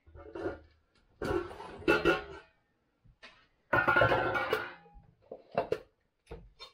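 Kitchenware being handled: several separate clatters and clinks as a drinking glass and a steel pot are moved about on the counter, some with a brief ringing tone.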